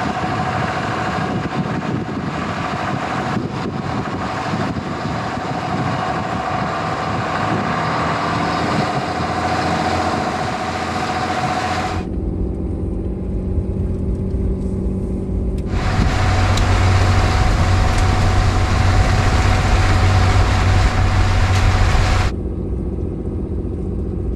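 Pickup truck with a camper driving on a snowy mountain road: steady engine and road noise, with a steady whine through the first half. The sound changes abruptly several times, turning to a lower rumble, then a louder, hissier stretch from about two-thirds of the way in until near the end.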